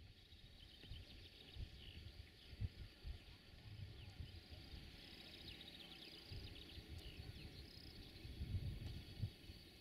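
Birds chirping and singing, with uneven gusts of wind rumbling on the microphone, the strongest gusts about two and a half seconds in and again near the end.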